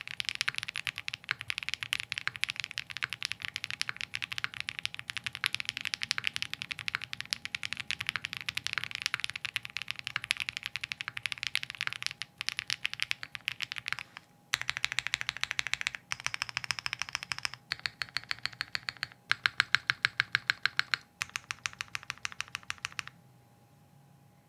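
Typing on a CKW 80 mechanical keyboard with stock KTT Hyacinth linear switches on a POM plate and GMK keycaps: fast continuous typing at first, then, after a short pause, several runs of quick, evenly repeated keystrokes, each run with its own ringing pitch. The typing stops near the end.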